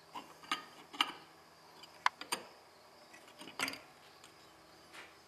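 A scattering of about seven light metallic clicks and taps as steel hand tools and clutch parts are picked up and handled.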